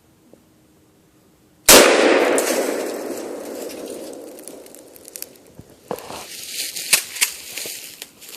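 A single sudden, very loud bang about a second and a half in, followed by a long fading rush of noise over several seconds, then scattered smaller clicks and pops.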